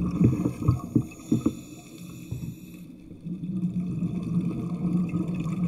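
Underwater audio: a steady low motor hum, with a few sharp knocks and clicks in the first second and a half. The hum fades around two seconds in and comes back about a second later.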